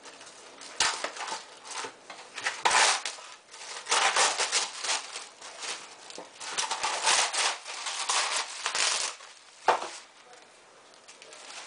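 Plastic wrap pulled off its roll from the box and crinkling in irregular bursts, with a single sharp knock near the end.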